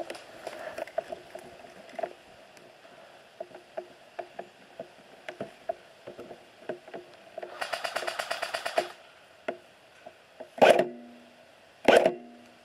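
Airsoft guns firing: scattered single shots and clicks, a rapid full-auto burst of about eight shots a second lasting about a second and a half mid-way, and two loud single shots near the end.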